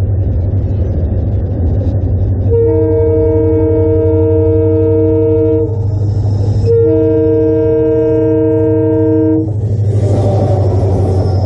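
Indian locomotive air horn sounding two long blasts of about three seconds each, a chord of several tones, over the locomotive's steady low drone. A rushing noise rises near the end.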